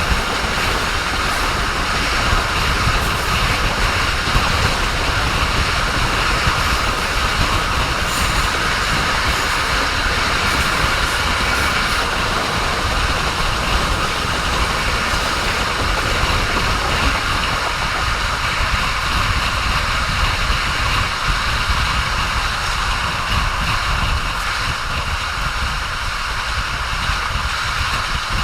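Train running on the rails: a steady rumble of wheels on track, with a hissing band higher up and a dip in the mid range about two-thirds of the way through.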